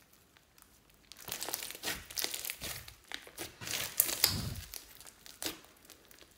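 Hands kneading and squishing glittery slime packed with foam beads: a dense run of small crackles and pops with sticky squelches, starting about a second in and dying away near the end, with one deeper squelch about four seconds in.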